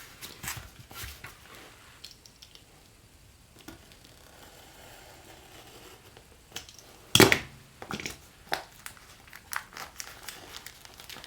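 Small cardboard box and its packaging being opened by hand: scattered rustling, crinkling and tearing, with a quieter stretch in the middle and one loud sudden rip about seven seconds in.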